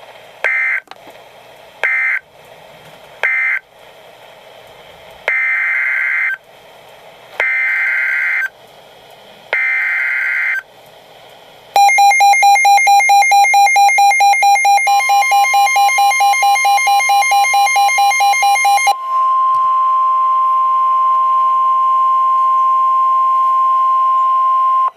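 Emergency Alert System SAME data bursts on NOAA Weather Radio: three short screeching bursts, the end-of-message code, then three longer bursts about a second each, the header for the next warning. Then about seven seconds of fast-pulsing alert beeps, with the steady single-pitch warning alarm tone coming in under them and running on alone for the last six seconds.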